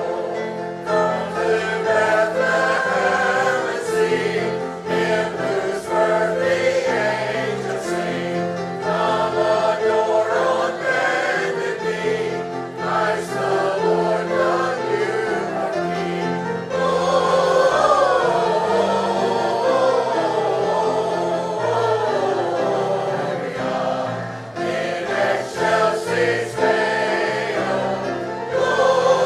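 Many voices singing a hymn together in church, over steady low accompaniment notes that change every second or two.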